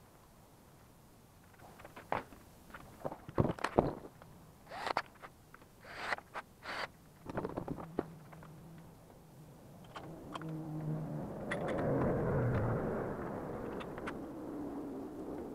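Wooden sifter frame with a wire-mesh screen knocking and clattering against concrete as it is tipped over and set on its side, a run of sharp knocks over several seconds. In the second half a vehicle goes by, rising to a peak and fading away.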